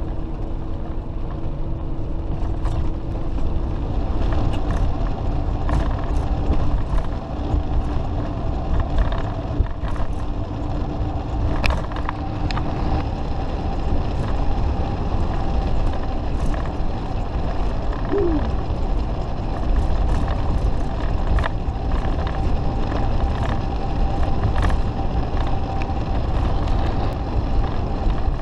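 Inside the cab of a Fleetwood Flair Class A motorhome on the move: a steady low road and engine rumble with a faint steady whine, and frequent small rattles and clicks.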